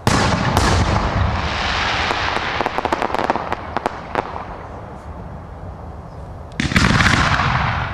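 Fireworks display: a sudden loud bang opens a salvo, followed by a dense, rapid crackling of many small pops for a few seconds. Another loud burst comes near the end and fades away.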